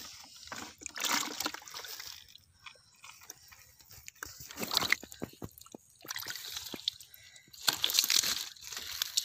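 Hands digging and scooping in wet mud and water, making irregular squelches, crackles and small splashes in bursts, the loudest flurry near the end.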